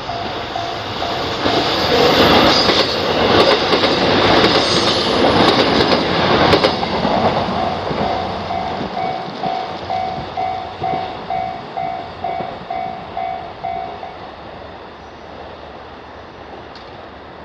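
Japanese level-crossing warning bell ringing in even strokes about twice a second while a train passes. The train is loudest from about one to seven seconds in, covering the bell, and the bell stops about fourteen seconds in.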